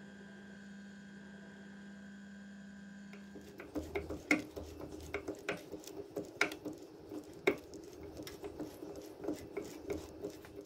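Drill press motor running with a steady hum. From about three seconds in, a small drill bit cuts into a metal part with irregular scraping and clicking.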